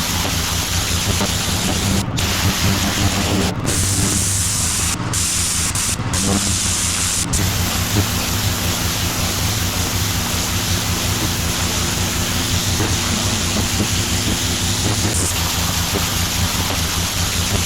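Pressure washer spraying concrete: a loud, steady hiss of high-pressure water over the steady hum of its petrol engine, the spray cutting out briefly several times in the first half.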